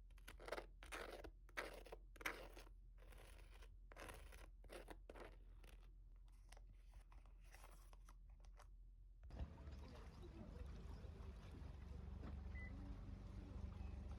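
Quiet crunching sounds, a dozen or so short ones in quick succession. About nine seconds in they cut off abruptly and give way to a steady low rumble.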